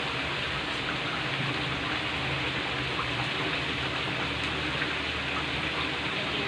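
Chicken pieces boiling in spiced turmeric water in a wok, giving a steady bubbling, sizzling hiss.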